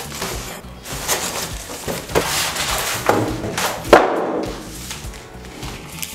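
Rustling and crinkling of monitor packaging being handled, with several knocks and a sharp knock about four seconds in, over background music.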